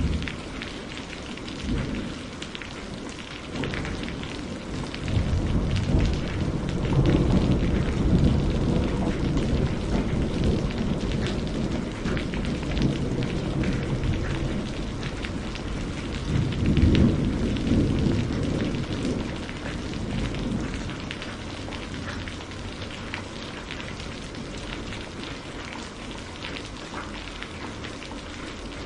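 Steady rain falling, with the patter of individual drops. Thunder rolls twice underneath it: a long rumble starting about five seconds in, then a shorter one a little past the middle.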